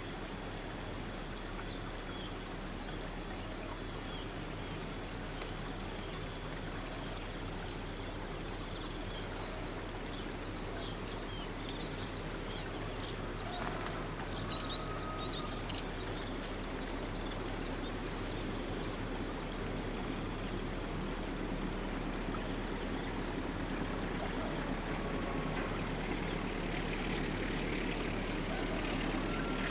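Steady high-pitched insect drone over outdoor hiss, with a low rumble that grows slowly louder towards the end as a diesel-hauled passenger train approaches.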